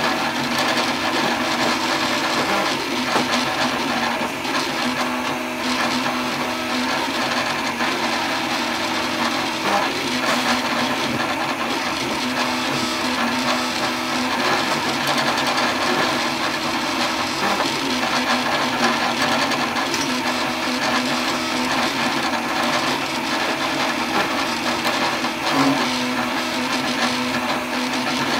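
3D printer running a print: its stepper motors whirr in shifting tones as the axes move, over a steady whir of cooling fans.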